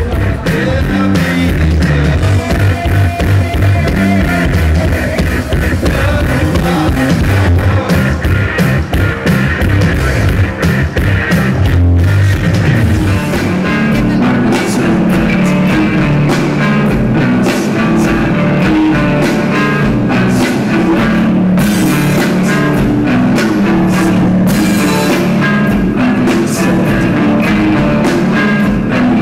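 Rock music with drums and guitar. The sound changes about halfway through, from a bass-heavy passage to a brighter one.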